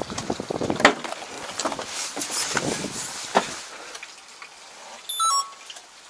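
Knocks, clicks and rustling from climbing into a tractor cab and handling its door, then a short run of electronic beeps near the end.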